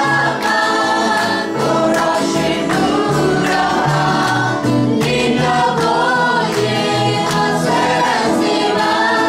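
Men and women singing a song together into microphones, backed by guitar, bass and drums playing a steady beat.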